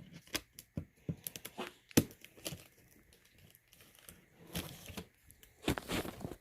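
A package being torn open by hand: irregular tearing and crinkling of packaging, with sharp clicks and knocks. There is one sharp strike about two seconds in, and the rustling is busiest near the end.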